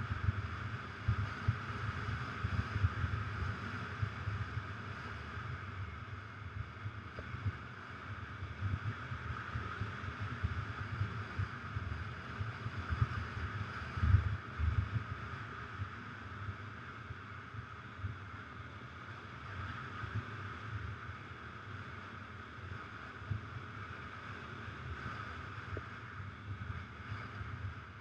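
Adventure motorcycle ridden along a sandy dirt track: the engine running steadily, muffled, under wind rumble and constant small jolts from the rough ground, with a heavier bump about halfway through.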